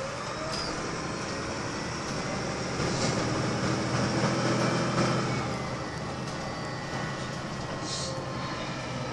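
Inside a Volvo B6BLE single-decker bus on the move: steady engine and road noise. It swells louder for a couple of seconds in the middle, then eases back, with a brief hiss near the end.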